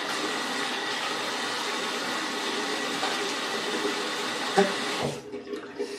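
Tap water running from a bathroom faucet into the sink as a steady rush, with a short knock or splash a little before the water is shut off about five seconds in.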